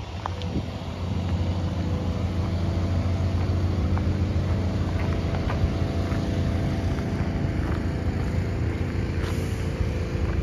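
Cummins ISX inline-six diesel in a 2007 International 9400i semi tractor idling steadily, a low even hum that gets a little louder about a second in.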